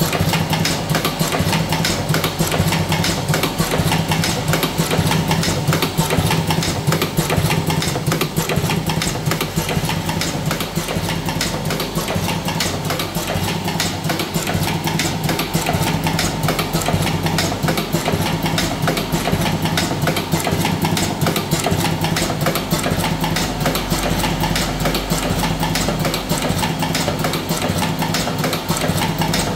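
Buffalo V4S electric cigarette-filling machine running steadily: a constant motor hum with a fast, continuous ticking rattle from its mechanism.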